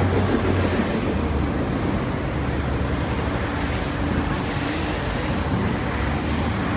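Steady traffic on a busy city street: a low, continuous engine rumble from buses and cars.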